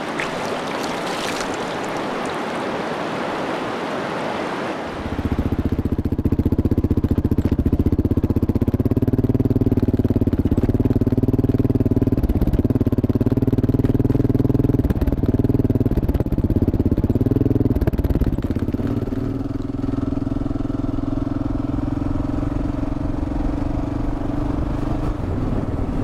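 A steady rushing noise for about five seconds, then the Kawasaki KLR650's single-cylinder four-stroke engine comes in abruptly and runs steadily for the rest, easing slightly a few seconds before the end.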